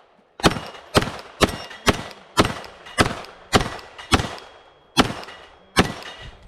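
Rapid pistol fire from a 9mm Glock 34 during a timed run: about ten sharp shots, roughly two a second, with a longer pause before the last two.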